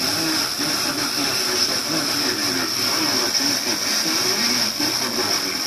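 Weak long-distance FM broadcast on a Marantz ST-50 tuner: steady hiss and reception noise with a faint voice coming through underneath.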